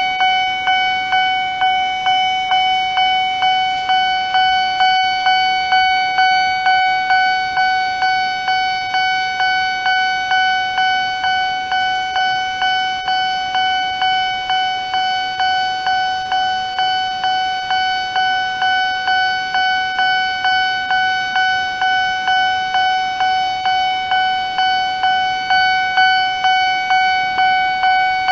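Nippon Signal electronic railway level-crossing alarm ringing, a steady pitched ding repeated about twice a second. It warns that the barriers are down for an approaching train.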